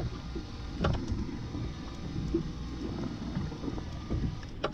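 Low, steady rumble of a boat at sea, with wind and water noise. Two short knocks come about a second in and near the end.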